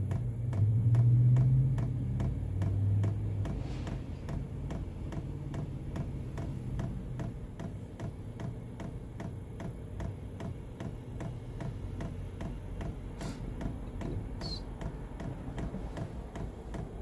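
Chinese diesel heater's electric dosing fuel pump ticking steadily, about two or three clicks a second, as it primes the new fuel line with diesel. A low hum sounds over the ticking for the first few seconds.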